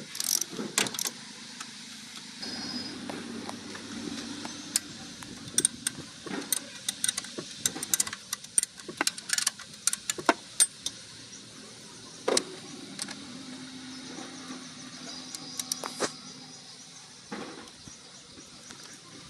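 Metal clinks and knocks of work on a car engine, with a steady low motor hum that comes in twice for several seconds.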